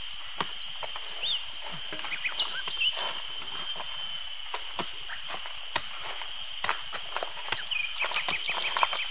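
Forest ambience: a steady high insect drone with short bird chirps, and footsteps crunching on leaf litter. Near the end comes a quick run of chirps, about eight a second.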